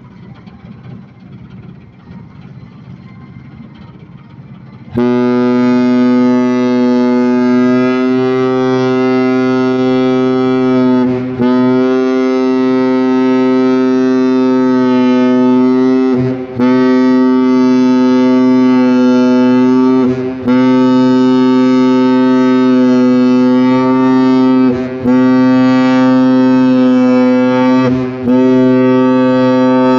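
A river cruise ship's horn sounding at one steady deep pitch, starting about five seconds in and held in long blasts with several brief breaks, the signal of the ship departing. Before it, a low rumble.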